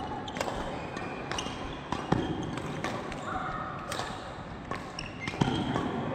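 Badminton rackets striking a shuttlecock during a fast rally, a series of sharp, irregular hits, along with players' shoes moving on the court mat.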